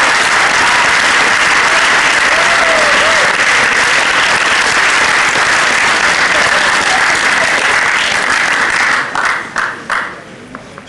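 Audience applauding steadily, then thinning to a few scattered claps and dying away about nine to ten seconds in.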